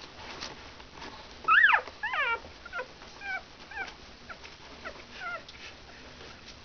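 Newborn Shetland sheepdog puppies whimpering: two loud squeals falling in pitch about a second and a half in, then a string of shorter, fainter squeaks.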